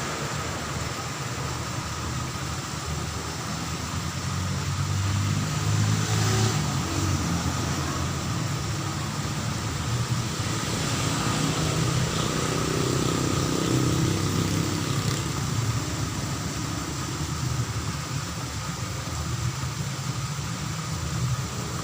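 Road traffic: engine rumble of passing vehicles, swelling and fading a couple of times, over a steady high-pitched hum.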